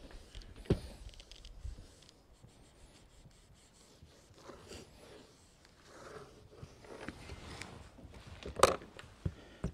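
A small model covering iron sliding and rubbing over laminating film on an EPP foam wing, with faint irregular scraping and crinkling. A sharp knock near the end is the loudest sound, followed by a couple of lighter clicks.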